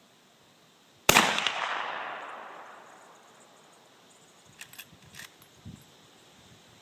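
A single rifle shot from a Mossberg rifle about a second in, its echo trailing away over the next two seconds. A few sharp clicks follow a few seconds later.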